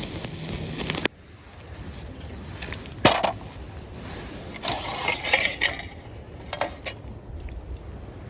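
A few light clinks and knocks of small hard objects being handled, one sharp knock about three seconds in and a short cluster a little later. They come after an abrupt cut from a louder, even noise about a second in.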